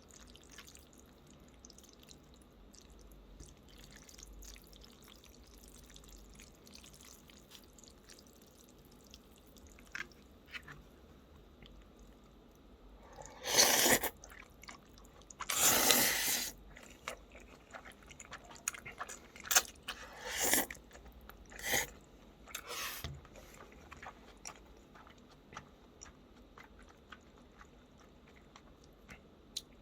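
A person eating gan-jjajang noodles and kimchi close to the microphone: soft chewing and small clicks, with a few louder noisy bursts about halfway through, the two loudest each lasting about a second.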